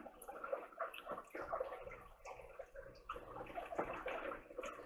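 Close-miked chewing and wet mouth smacks from eating fried chicken-and-cheese mini tacos, heard as faint, irregular clicks and smacks.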